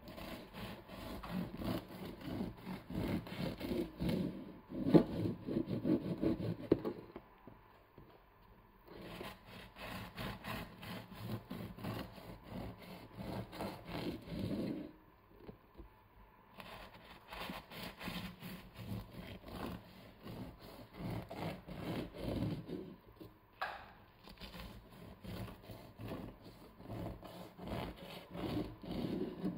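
A long knife sawing back and forth through the crust of a homemade yeast loaf on a wooden cutting board. Three slices are cut, each a run of quick strokes lasting several seconds, with short pauses between them.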